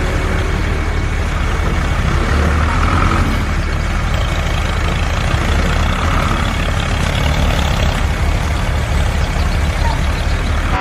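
Engine idling steadily with a low, fast, even chug, cutting in abruptly at the start.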